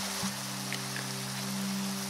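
Soft background music with long held low notes, over a steady even hiss.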